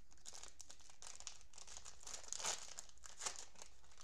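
Plastic cello-pack wrapper of a trading card pack crinkling as gloved hands pull and tear it open. The crackling runs throughout, is loudest about halfway through, and has one sharp crackle near the three-quarter mark.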